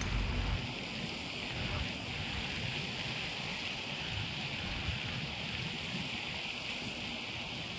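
Steady outdoor hiss with wind on the microphone; a heavy low wind rumble drops away about half a second in.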